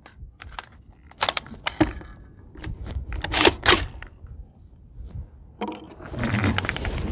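Sharp metallic clicks and clacks of an AR-15 rifle being handled and readied at the bench, the loudest two about halfway through, over a low rumble of wind on the microphone.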